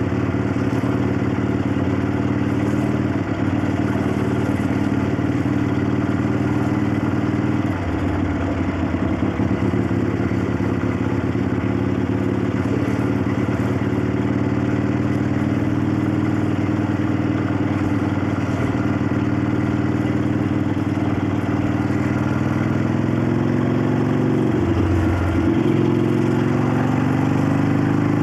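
1965 Harley-Davidson XLCH Sportster's Ironhead V-twin running under way, with the valves clacking and the intake wheezing. Its note shifts about eight seconds in and climbs near the end as the bike speeds up, with a brief break just before.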